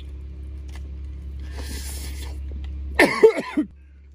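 A man biting into and chewing a fried chicken burger over a steady low hum. About three seconds in comes a short, loud, muffled vocal sound from his closed mouth, a few quick pulses, after which the hum drops away.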